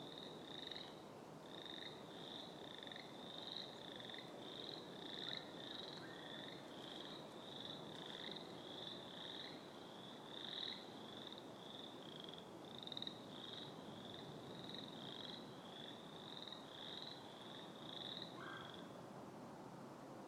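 Faint frog chorus with bullfrogs among the callers: a high pulsing trill repeats steadily and stops about a second before the end, over a low rough background.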